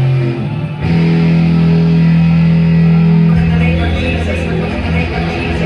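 Rock band playing with guitars and bass: long held chords, changing just before a second in, then breaking into a faster, rhythmic strummed part a little past halfway.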